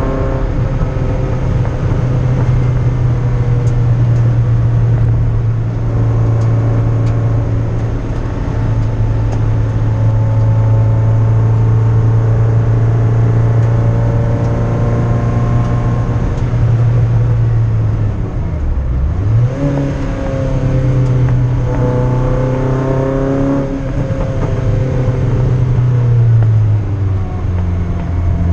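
MGF race car's engine heard from inside the cabin under hard driving on track, holding a steady high-revving note for long stretches. About two-thirds of the way through the revs drop sharply and climb again, and near the end they fall to a lower pitch.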